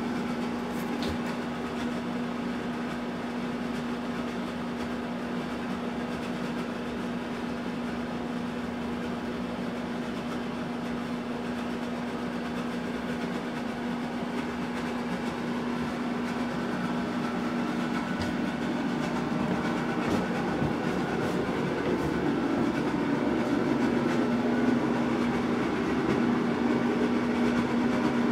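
Steady mechanical hum with one constant low tone over a noisy whir, growing a little louder in the last third.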